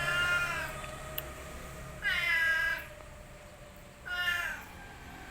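Domestic cat meowing three times, drawn-out calls about two seconds apart, the later ones dropping in pitch at the end.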